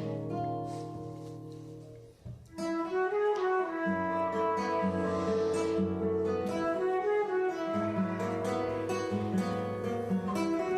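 Slow instrumental guitar music played live, with long ringing notes; the sound fades out about two seconds in and a new phrase starts half a second later.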